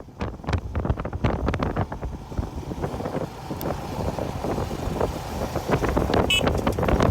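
Wind buffeting the microphone over the low rumble of a moving motorbike, with a brief high-pitched squeak about six seconds in.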